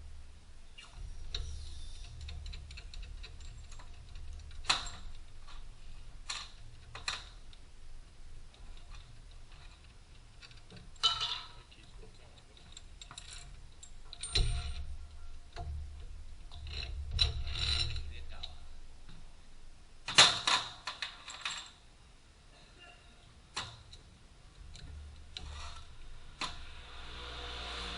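Scattered metallic clicks, clinks and knocks of hand tools and car parts being handled while a front wheel bearing is replaced, with a few louder knocks at irregular intervals.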